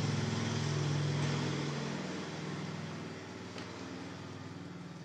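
A vehicle engine humming low and steady, then fading away over the next few seconds.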